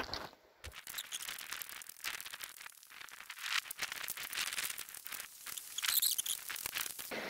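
Footsteps crunching over a dry riverbed of rounded pebbles and cobbles, the stones clicking and grinding against each other underfoot in a quick, irregular patter.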